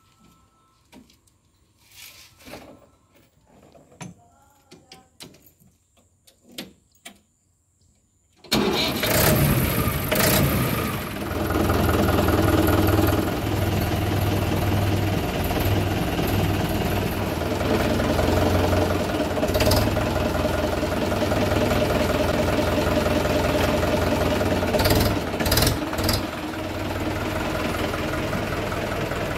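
A few faint clicks and knocks, then about a third of the way in a Swaraj 843 XM tractor's three-cylinder diesel engine comes in suddenly. It runs steadily and loudly for the rest of the time.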